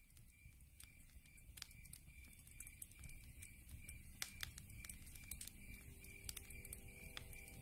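Faint crackling of a wood fire: irregular sharp snaps and pops over a low rumble, slowly fading in.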